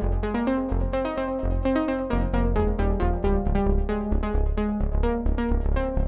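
Dreadbox Nymphes six-voice analog polysynth played from the keyboard: a fast run of short, plucky notes over a held low bass.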